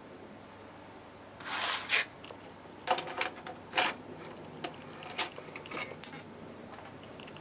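A MiniDisc scraped across a desk top, then pushed into the slot of a MiniDisc deck, followed by a string of sharp clicks and knocks as the loading mechanism draws the disc in and the deck begins reading its table of contents.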